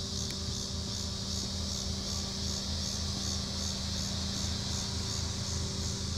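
Insects chirping in a steady pulsing chorus, about three pulses a second, over the low steady hum of an idling Toyota Corolla.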